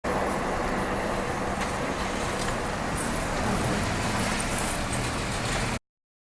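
Steady vehicle noise: an even rushing rumble with a low hum underneath, cutting off suddenly near the end.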